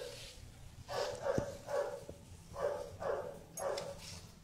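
A dog barking: about six short barks, mostly coming in pairs.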